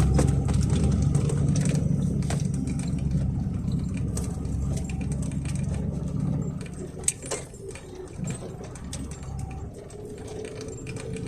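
A vehicle's engine running with a low hum that gradually fades over about seven seconds, with scattered light clicks and knocks throughout.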